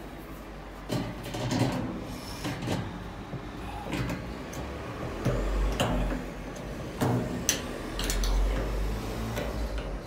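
Scattered clicks, knocks and rattles of metal and plastic parts being handled: a washing machine's suspension rod being worked into the cabinet's corner bracket with pliers, with a few low rumbles of handling between.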